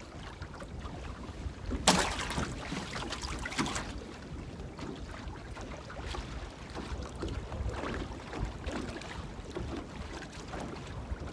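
Wind buffeting the microphone in a steady low rumble. About two seconds in comes a sudden loud, noisy burst of clattering or rustling that lasts nearly two seconds.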